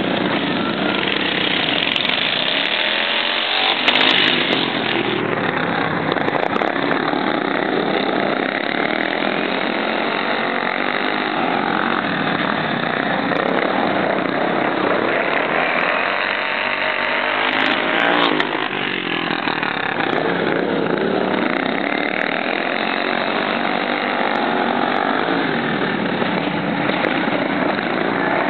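Several racing riding lawn mowers' small engines running at high revs, the pitch swelling and falling as machines pass, loudest about four seconds in and again around eighteen seconds.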